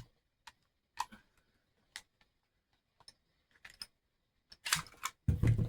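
Hi-Point JCP pistol being handled: scattered light metal clicks, then a louder run of clacks near the end as its parts are worked.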